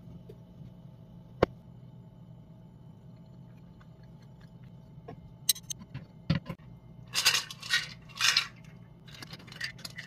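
Metal kitchen tongs clicking and then scraping three times across a wooden cutting board as cooked kabocha squash peels are gathered up, after a single sharp knock about a second and a half in.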